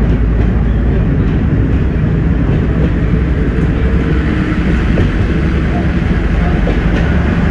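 Class 104 diesel multiple unit running along the line, heard from inside the cab: a steady low drone from its underfloor diesel engines over the rumble of wheels on rail.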